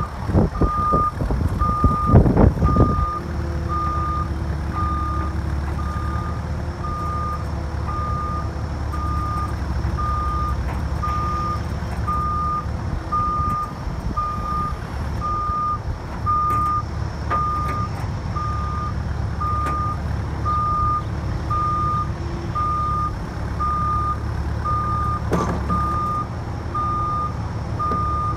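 Cat 305E2 mini excavator's diesel engine running, with a backup alarm beeping at an even pace over it throughout. Knocks and clatter come in the first three seconds, the loudest part, and once more near the end.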